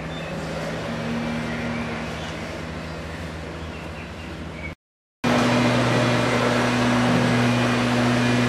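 Steady low mechanical hum, like a running engine or machinery, over outdoor background noise. About five seconds in it drops out for a moment, then resumes louder and slightly lower.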